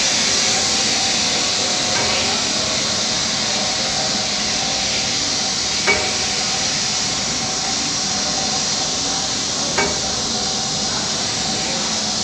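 Saliva ejector tube production line running with a steady mechanical noise, with a sharp knock about every four seconds.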